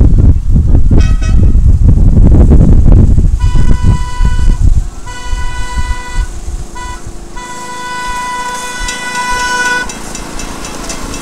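Miniature passenger train sounding its horn for a grade crossing in the standard pattern: long, long, short, long, the last blast the longest. Wind buffets the microphone for the first few seconds.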